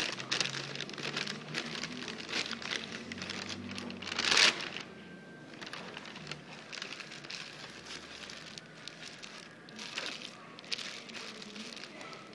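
Paper takeout bag rustling and crinkling as hands open it and rummage inside, then a paper burger wrapper crinkling as the burger is pulled out. There is a loud crackle of paper about four seconds in.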